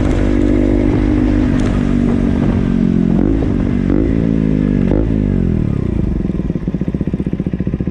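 KTM Duke motorcycle engine held at raised revs, blipped three times, then revs falling away and settling into a lumpy idle with a steady pulse of about eight beats a second.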